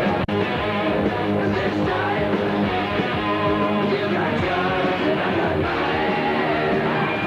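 Loud hard rock music with electric guitar and vocals, with a brief dropout about a third of a second in.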